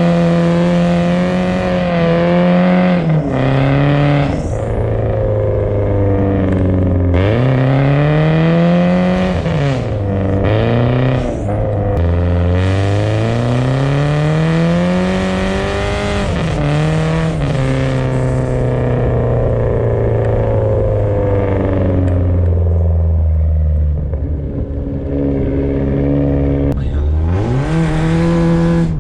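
BMW car engine revving hard while drifting on ice, its pitch climbing and falling back again and again every few seconds. Near the end it holds a long steady note before climbing sharply once more.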